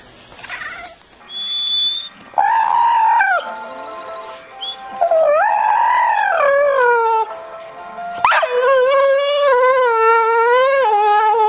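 A pet howling: three long, drawn-out howls, each longer than the last, the third wavering up and down in pitch. A short high-pitched squeal comes just before the first howl.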